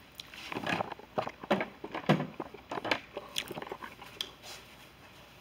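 Handling and movement noise close to the microphone: irregular clicks, rustles and scuffs that die down after about four seconds.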